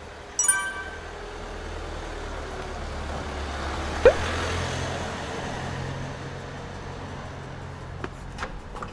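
Steady low rumble of road traffic, with a short ringing clink about half a second in and a brief rising squeak about four seconds in.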